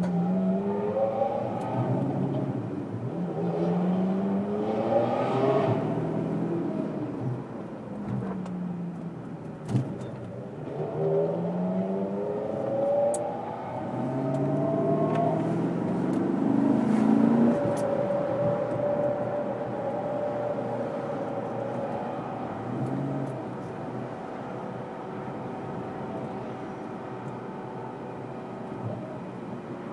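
Ferrari 360's V8 engine pulling away and revving, its pitch climbing and dropping again several times as it runs through the gears. In the last ten seconds or so it settles to a steadier, quieter run.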